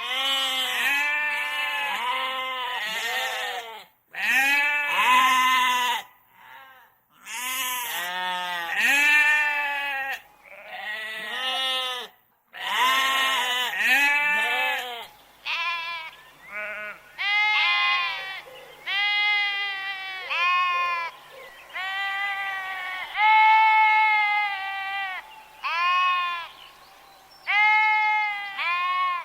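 Sheep bleating over and over. For the first half several wavering bleats overlap, broken by a couple of sudden short gaps; after that single bleats follow one another about a second apart.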